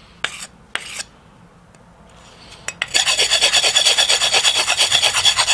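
A hand-held abrasive stone rubbed along the edge of a steel knife blade to dull its accidentally sharpened edge. A few separate scrapes in the first three seconds, then rapid back-and-forth rasping strokes, several a second.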